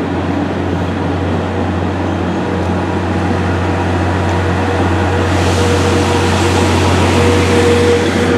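Chichibu Railway electric commuter train pulling slowly into a station: steady running noise with a constant hum, growing gradually louder as it nears, with a hiss joining about five seconds in.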